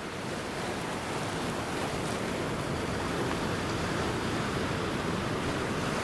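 Steady rushing outdoor ambient noise, rising slightly over the first second and then holding level.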